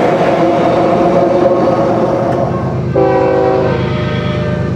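BNSF diesel locomotive horn: a held chord fading away over the first couple of seconds as the train moves off, then a short, sharp horn blast about three seconds in, over the low rumble of diesel locomotive engines.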